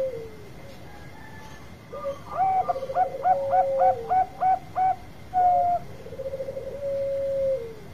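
Zebra dove (perkutut, Bangkok type) singing: a quick run of about eight short, hooked coos, then a single coo, then a rolling purr that settles into one long held coo near the end.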